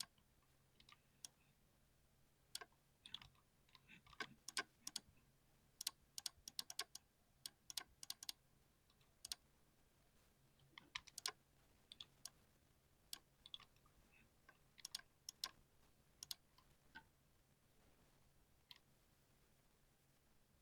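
Typing on a 60% keyboard: irregular runs of keystroke clicks. The clicks pause briefly a little before the middle and thin out to a few single strokes near the end.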